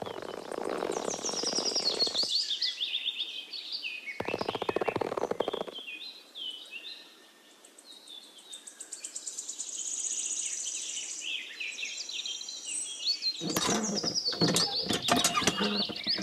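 Birds chirping and singing throughout, over handling noise from clear plastic tubing being fitted to a miniature hand pump in two short stretches near the start. From about three seconds before the end come a run of clicks and rattling as the pump's little wire handle is worked.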